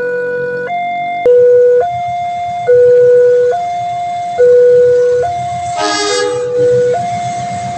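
Railway level-crossing warning siren sounding a two-tone hi-lo alarm, switching between a lower and a higher tone a little faster than once a second, with the lower tone louder. A low rumble runs underneath, and a short horn blast sounds about six seconds in.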